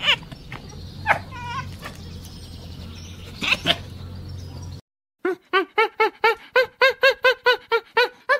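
Animal calls: a few scattered short calls over a low steady hum, then, after a cut, a rapid run of short repeated calls, about three a second.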